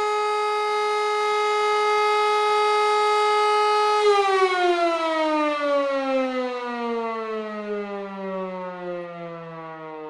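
German fire-brigade alarm siren holding one steady, loud wailing tone, then about four seconds in beginning to wind down, its pitch sliding slowly lower as it fades.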